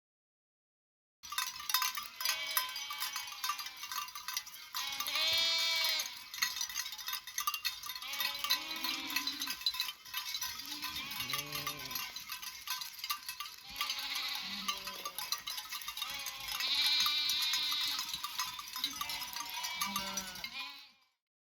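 A bell-wearing flock of livestock: many bells clinking and clanking on and on, with repeated bleats among them. It starts about a second in and stops shortly before the end.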